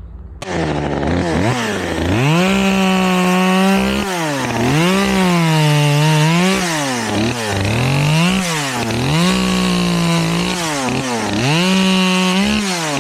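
Chainsaw cutting through wood, its engine pitch dropping under load during each cut and rising again between cuts, over and over.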